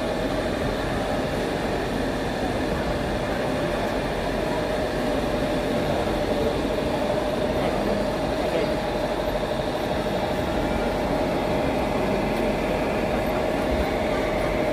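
Busy exhibition-hall din: steady crowd chatter mixed with a machine-like drone and a constant hum.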